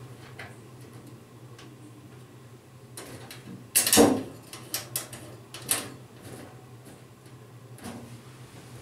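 Sheet-steel desktop computer case being handled as its side panel is fitted and the screws put back in: a loud knock about four seconds in, then several lighter clicks, over a faint steady hum.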